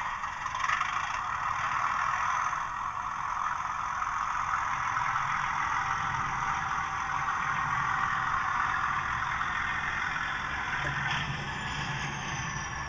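Bachmann OO gauge Class 37 locomotive's DCC sound decoder, fitted with two standard speakers, playing a Class 37 diesel engine sound that runs steadily as the model loco moves. A faint high whine falls in pitch near the end.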